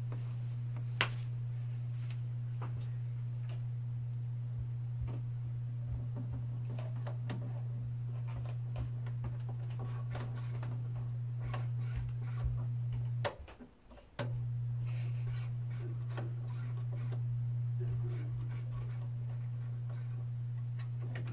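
Low, steady mains hum from a 1949 Admiral 24C15 vacuum-tube television warming up on a variac at about 100 volts. The hum cuts out for about a second midway, and faint ticks sound over it. The hum is the sign of heavy AC ripple on the B+ filter capacitor after the 5U4 rectifier, a leaking, failed filter capacitor.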